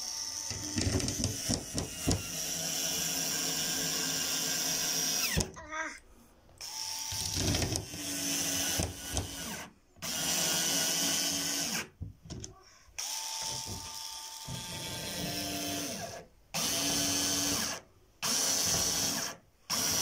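Bosch cordless screwdriver's motor whirring in runs of a few seconds each, stopping and starting about six times, as it drives screws into a cabinet panel.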